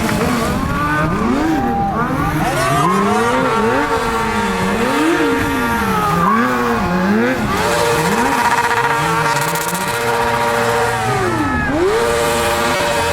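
Sport motorcycle engine revving up and down about once a second, then held at high revs for several seconds before dropping and climbing again near the end, as a stunt rider works the throttle.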